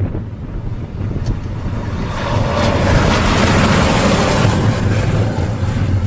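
Railway train plowing through snow: a steady low engine rumble with a rushing hiss that swells from about two seconds in.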